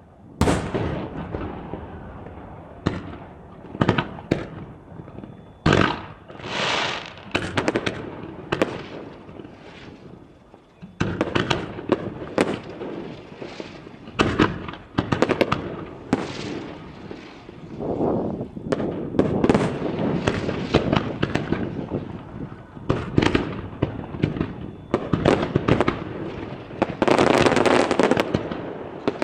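Aerial fireworks bursting in rapid succession: repeated sharp bangs with echoing booms, mixed with crackling and hissing shells. There is a short lull about ten seconds in, and near the end a dense stretch of continuous crackle.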